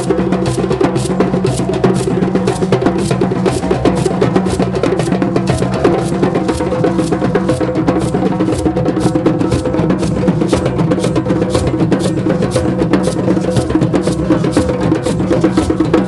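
Several djembes played together by hand in a steady, fast, unbroken rhythm of dense drum strokes.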